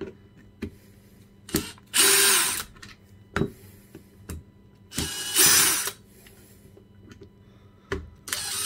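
Cordless drill-driver with a T10 bit backing small screws out of a plastic power-tool housing. It runs in two short bursts, about half a second and a second long, with a few sharp clicks and taps between them.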